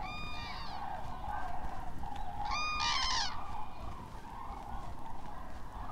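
Common cranes calling: two loud, clear calls, one at the start and one about two and a half seconds in, over the steady chorus of a distant flock.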